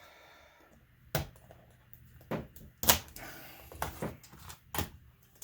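Laptop screen parts being handled and unclipped: about five sharp plastic clicks and knocks, the loudest about three seconds in.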